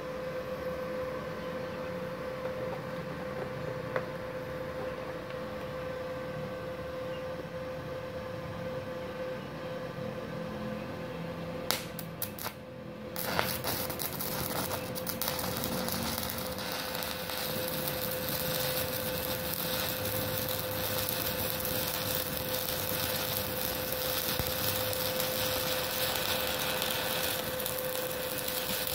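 Stick (MMA) welding with a 2.6 mm electrode at 61 amps from an IGBT inverter welder. A steady hum and whine are heard at first. About twelve seconds in, the electrode strikes with a few sharp crackles, and then the arc catches and burns with a steady crackling hiss. The arc lights as soon as the electrode touches the work, which the welder puts down to the supply having enough power.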